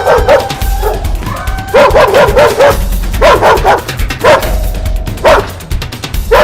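A dog barking in quick runs of short, sharp barks over background music.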